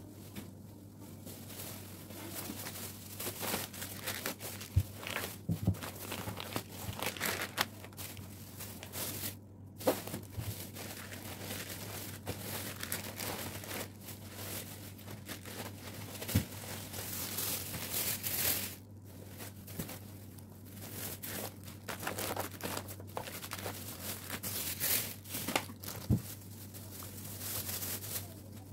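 Thin plastic grocery bags rustling and crinkling as groceries are taken out of them by hand, with occasional short knocks of items being set down.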